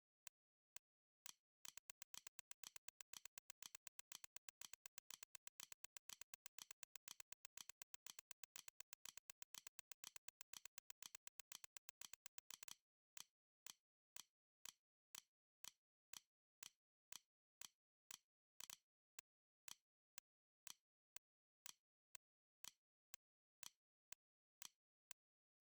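Metronome clicks: a few spaced ticks, then a very fast run of clicks for about eleven seconds, then a steady beat of about two clicks a second.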